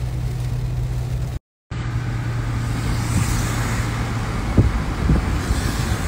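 Inside a car driving through heavy rain: a steady engine hum under the hiss of rain and wet tyres on the road, with a couple of soft knocks past the middle. The sound drops out for a moment about a second and a half in.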